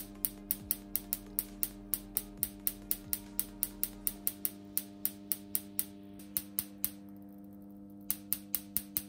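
Sparks snapping across a needle spark gap at about five a second, driven by a roughly 10 kV voltage multiplier submerged in olive oil, with a pause of about a second near the end. The oil keeps the multiplier insulated, so there is no corona hiss, only the snaps over a steady low hum.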